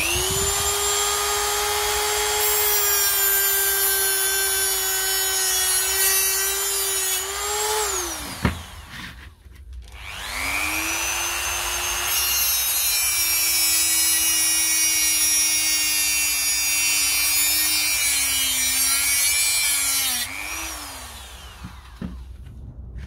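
Rotary tool with a cut-off disc running at high speed and cutting into a lithium-ion battery pack, in two runs about two seconds apart, each ending as the motor winds down. The pitch sags and wavers under load near the end of the second run.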